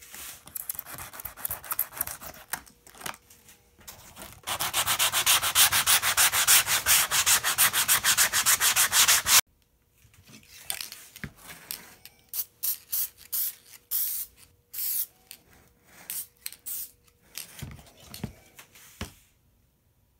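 Hand trimming of cured, foamed-out Gorilla Glue on an EPP foam wing with a blade and fine saw: rubbing, scraping strokes, with a loud run of rapid, even strokes from about four seconds in that stops abruptly, then scattered shorter strokes.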